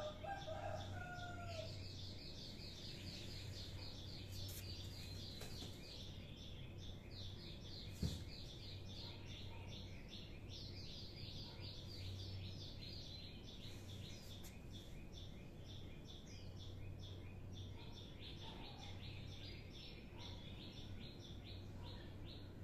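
Faint outdoor ambience dominated by a rapid, continuous high-pitched chirping, several chirps a second, over a low hum. A short call gliding upward in pitch just after the start and a single sharp knock about eight seconds in.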